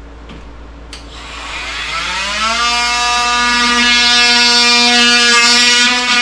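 Electric power tool switched on with a click, its motor spinning up over a second or so to a steady high whine full of overtones.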